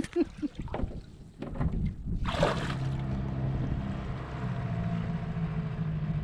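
A small outboard motor on a dinghy running steadily underway, a low even hum, with a brief rushing noise about two and a half seconds in. For the first second and a half, before the motor starts, there is splashing water.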